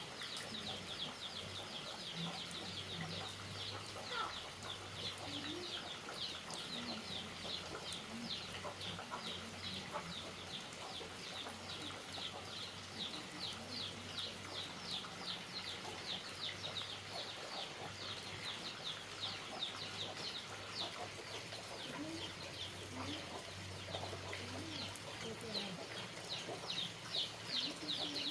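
Chickens: a continuous rapid high peeping, about four calls a second, with occasional short low clucks.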